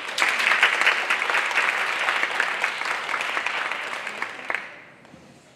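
Audience applauding, starting at once and fading out after about four and a half seconds.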